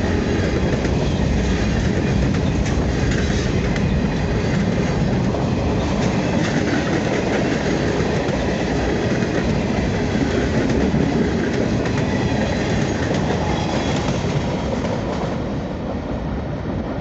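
Freight train cars rolling steadily past, wheels clacking over the rail joints; the sound eases off slightly near the end.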